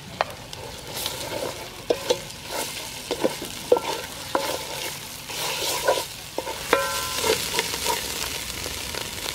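Chili and pounded spice paste sizzling in hot oil in an aluminium pot as a wooden spoon stirs and scrapes it, with frequent short knocks of the spoon against the pot.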